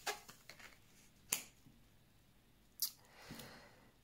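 Oracle cards being flipped face up and laid down on a woven table mat: three short, sharp card snaps about a second and a half apart, then a faint soft brushing of a card near the end.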